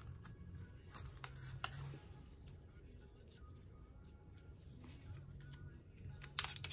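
Scattered light clicks and taps over a low hum, then a quick run of sharper, louder clicks near the end.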